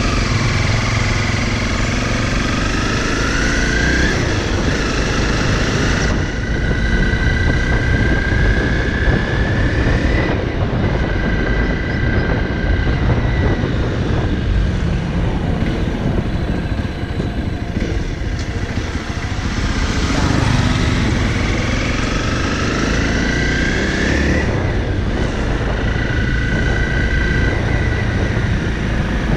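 Honda CRF motorcycle engine riding along, its pitch rising twice as it accelerates, at the start and again about two-thirds of the way in, and holding steady while cruising in between, over a constant low rush.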